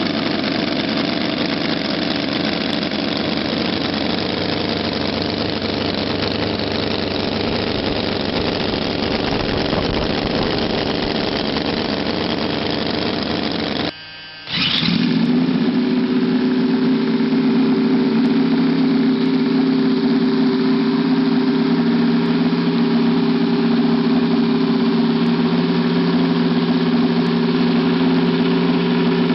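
Small hobby-built model W9 (three-bank, nine-cylinder) engine running with a busy, rough note. About halfway it cuts out. A brief rising whine follows as another small model W9 is switched on and catches, and it then idles steadily with an even hum.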